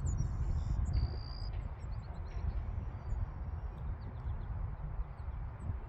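Wind rumbling on the microphone outdoors, with a few faint high chirps now and then.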